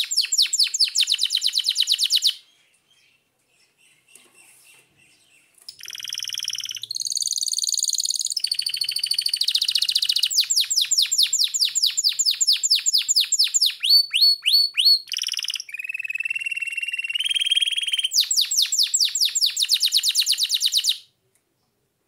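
Domestic canary singing: rapid trills of quickly repeated, downward-sweeping high notes alternating with buzzy and rolling phrases. The song breaks off for about three seconds shortly after the start, then runs on without a break and stops suddenly about a second before the end.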